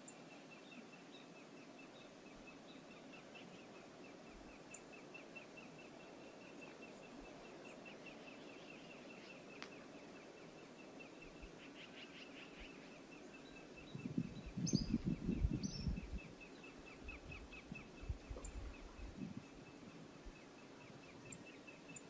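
Faint steady rush of river water, with a thin high chirp repeating about three times a second through most of it. About two-thirds of the way in, loud low buffeting gusts, typical of wind on the microphone, are the loudest sound, followed by a few weaker gusts.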